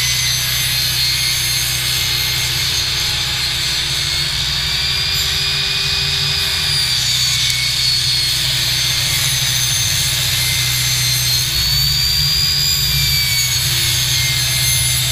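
SkilSaw SPT70WT-22 worm-drive table saw with a Diablo blade running and ripping a pine 2x4, a loud, steady whine whose pitch rises slightly twice as the load on the blade changes.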